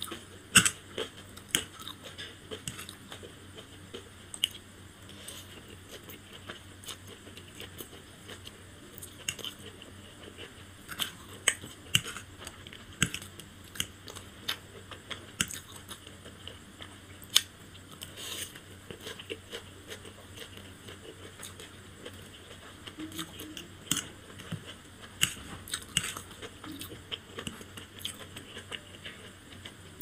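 Close-miked chewing and biting of fried chowmein noodles, with irregular sharp wet clicks and smacks of the mouth.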